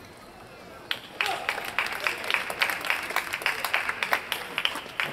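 A sharp hit about a second in, followed by an audience clapping and cheering, several claps a second, as the game point is won.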